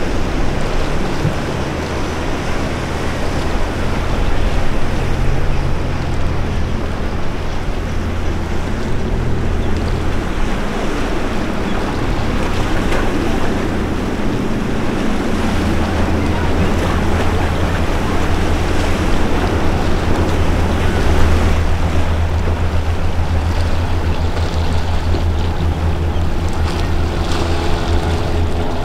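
Inboard engines of a powerboat running at speed through the inlet, a steady low drone, over the rush of its wake and surf with wind buffeting the microphone.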